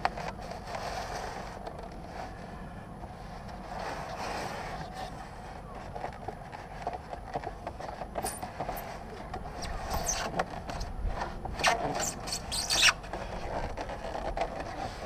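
Foam-board insulation box scraping and squeaking as it is slid up off a wooden beehive, in a run of sharp scrapes from about eight seconds in that are the loudest sounds, over a steady low rumble.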